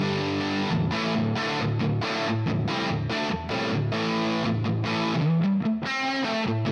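Electric guitar played through a Flamma FG200 multi-effects pedal on its factory preset P2D, a distorted tone, with a run of chords struck one after another.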